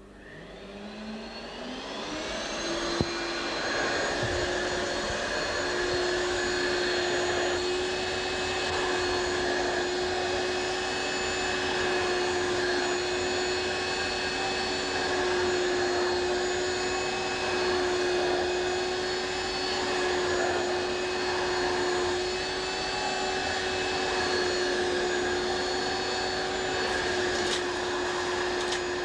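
Hoover Turbomaster upright vacuum cleaner switched on: the motor spins up, its pitch rising over the first couple of seconds, then runs at one steady pitch with a rushing airflow noise. There is a single click about three seconds in.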